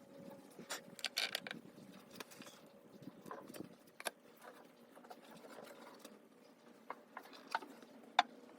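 Scattered light clicks and taps, irregular, a small cluster about a second in and a sharper single click near the end, over a faint steady hum.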